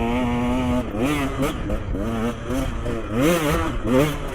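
Dirt bike engine riding along a trail. It holds a steady pitch for just under a second, then revs up and down again and again as the throttle is worked on and off.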